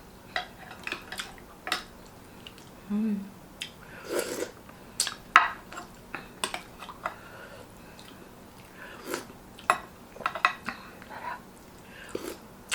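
Close-miked eating: wet chewing and lip smacks, with scattered clicks of cutlery against a plate. A brief hummed "mm" comes about three seconds in.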